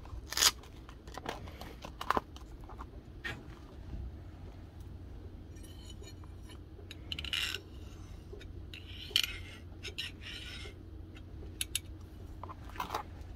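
Light metal clinks and clicks as a steel knife blank and small metal parts are handled and set down on an anvil, with a few short scraping strokes in between. The sharpest click comes about half a second in.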